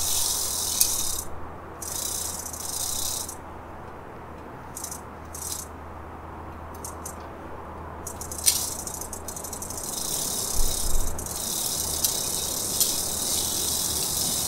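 Bicycle chain being pedalled backwards through a rag over the chainring and rear cogs: a fast, continuous clicking rattle from the drivetrain. It comes in short spells with pauses in the first half, then runs steadily through the second half.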